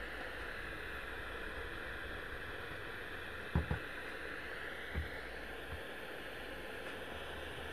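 A few light knocks about halfway in, three in under two seconds, as hands work at the cab of a Roundhouse Karen live-steam locomotive, over a steady hiss.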